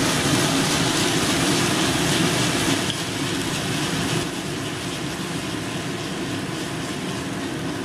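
Thick bhindi masala gravy sizzling and bubbling in a hot pan as a little water goes in, a steady hiss that eases slightly about four seconds in.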